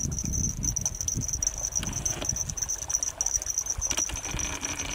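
Crickets chirping in a steady high trill, over a low, uneven rumble of wind and handling noise on the microphone.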